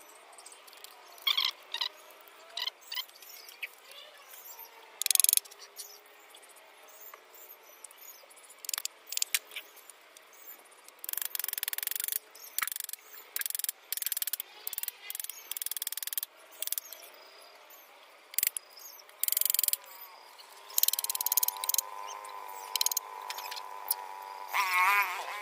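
Irregular knocks, clatters and short scrapes of wooden slats being handled and set down on dirt ground. A bird warbles in the background near the end.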